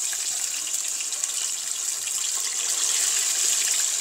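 A piece of chicken frying in hot oil in a cast-iron pot: a loud, steady sizzle.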